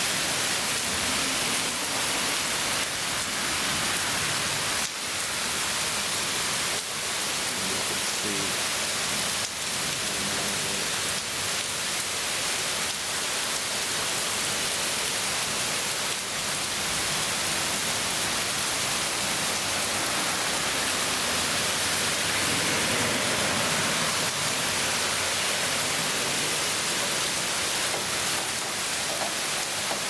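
Torrential rain falling steadily: an even, unbroken hiss of a heavy downpour on pavement, grass and trees.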